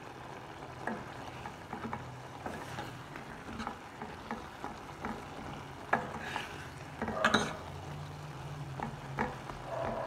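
A metal spoon stirring a thick drumstick and lentil curry in a pan, knocking and scraping against the pan at irregular intervals, with the loudest strokes about seven seconds in, over a faint steady hum.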